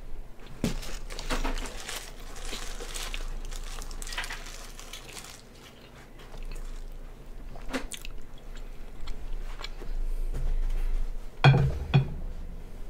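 A person chewing and crunching a mouthful of sprinkle-topped donut close to a microphone. Near the end come two loud knocks.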